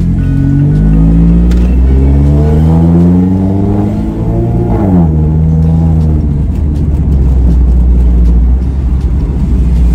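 Supercharged Mazda MX-5 Miata ND four-cylinder running through custom 4-into-1 headers and a Borla exhaust, heard from the open cabin. Its note rises steadily with the revs under acceleration for the first few seconds, dips briefly about four seconds in, climbs once more and falls away sharply about five seconds in, then settles into a steady cruising note without drone under road noise.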